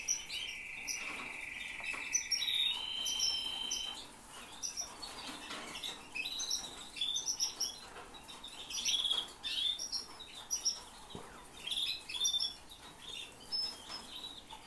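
Domestic canaries singing: a long sustained trill that steps up in pitch about two and a half seconds in and breaks off about four seconds in, then a run of short, high chirps and twitters.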